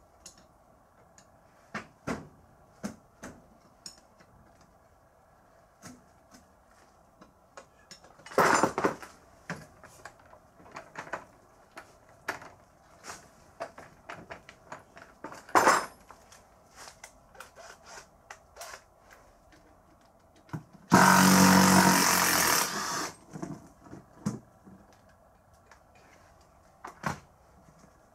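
Metal tools clinking and knocking on the parts of a rice transplanter's front axle during disassembly, with a power tool running in one burst of about two seconds late on.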